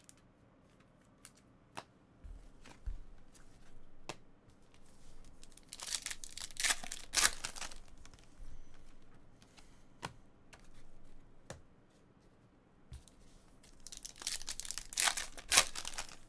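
Wrappers of Panini Prizm trading-card packs being torn open and crinkling, in two bursts about six seconds in and again about fourteen seconds in, with scattered light clicks between.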